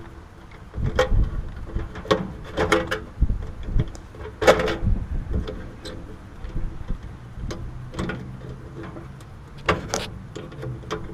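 Irregular clicks and knocks of hands and tools working on an air conditioner's capacitor wiring as the start and fan wires are pulled off the terminals, over a low steady rumble.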